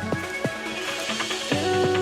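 Electronic background music with a steady beat and sustained synth notes, growing fuller about one and a half seconds in.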